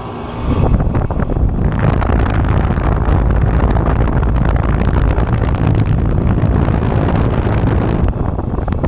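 Gas furnace burners lighting after the igniter sparks: a sudden rumbling roar about half a second in, which then runs on steadily.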